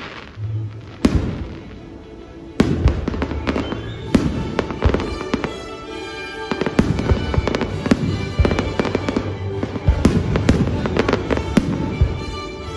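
Aerial fireworks going off: a few separate bangs at first, then from about two and a half seconds in a dense run of bangs and crackling, with music playing underneath.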